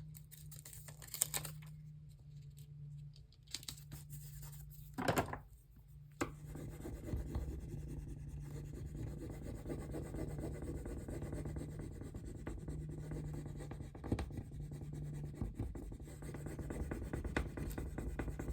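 Rub-on transfer being burnished onto a paper journal page: a few handling clicks, then continuous scratchy rubbing from about six seconds in. A low steady hum runs underneath.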